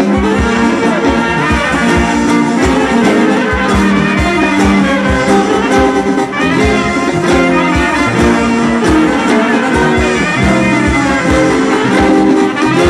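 Greek Macedonian brass-band folk dance music: brass instruments playing a melody over a steady drum beat.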